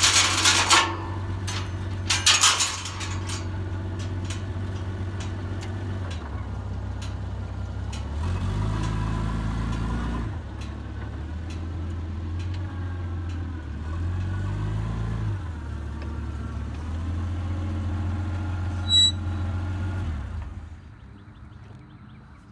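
An engine running steadily, its pitch stepping up and down several times, then shutting off about twenty seconds in. Loud, sharp rattling bursts come in the first three seconds, and a short high beep comes near the end.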